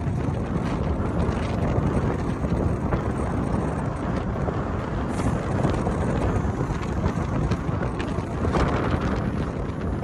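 Wind buffeting the microphone of a car driving at road speed, a steady low rumble mixed with tyre and road noise.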